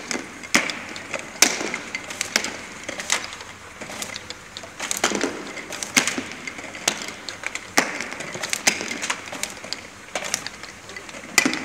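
Automatic labeling machine for small plastic super glue bottles running, with a continuous mechanical noise and sharp clicks and clacks about twice a second, irregularly spaced.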